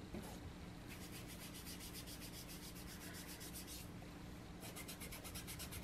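Small round foam finger dabber rubbed quickly over a Distress Oxide ink pad to load it with ink: a faint, rapid, even scrubbing that pauses briefly a little before four seconds in.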